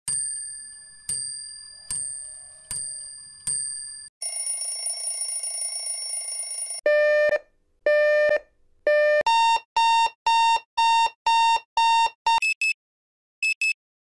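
A run of alarm clock sounds with no ticking. First come five high dings about a second apart, each ringing away, then a few seconds of continuous bell-like ringing. Electronic beeps follow: three long ones, then a faster run of about two a second, ending in quick double beeps.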